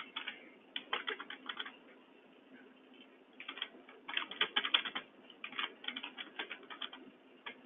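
Typing on a computer keyboard in several short bursts of rapid key clicks, with pauses between them: a name being typed into a form.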